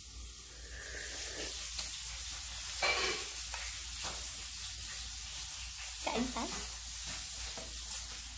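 Steady sizzling of food frying in a pan, with a few light knocks and brief mouth sounds on top.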